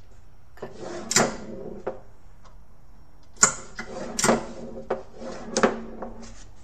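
Steel pinballs rolling by hand across a bare plywood playfield with a low rumble, and four or five sharp clacks as they hit the prototype staircase assembly.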